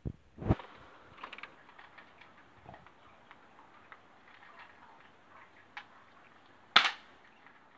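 Knocks and light clicks of a BB gun being handled near the start, then a single sharp crack of a BB gun shot near the end.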